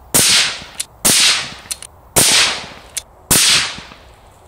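Four rifle shots from an Accuracy International AT-X in 6.5 Creedmoor, about a second apart. Each is a sharp crack that dies away over most of a second.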